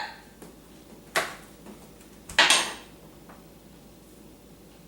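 Kitchenware being handled: two short, noisy clatters about a second apart.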